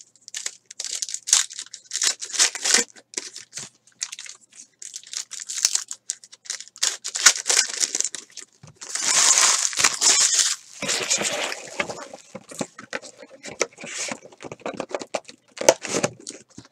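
Trading-card pack wrappers from a 2018 Panini Diamond Kings baseball box being torn open and crinkled, one after another. The tearing comes in short rips, with one longer rip about nine seconds in.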